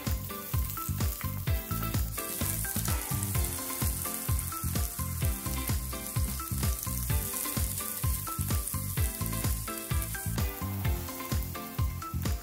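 Sliced onion sizzling in hot oil in a frying pan as it is stirred, under background music with a steady beat.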